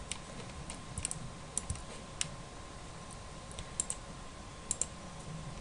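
Scattered clicks of a computer mouse and keyboard, about a dozen, a few in quick pairs, over faint hiss and a thin steady tone.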